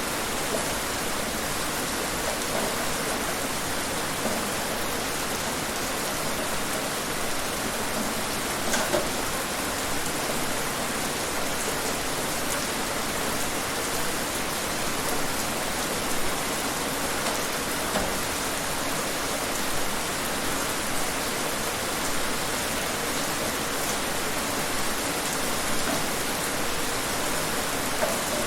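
Steady rain falling and pattering on surfaces, an even hiss with scattered individual drops ticking now and then.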